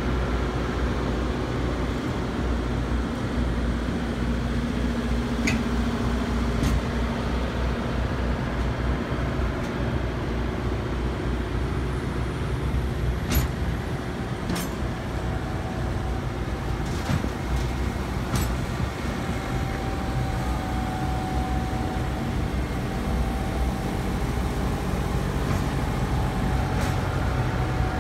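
Diesel gensets on a train of refrigerated reefer containers running together in a steady low drone, each container's refrigeration unit working. A few sharp clicks or knocks come in the second half.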